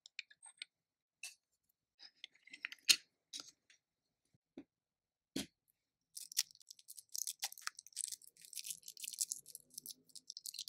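Small clicks and taps of miniature kitchen utensils being handled, then a dense, steady crackle from about six seconds in.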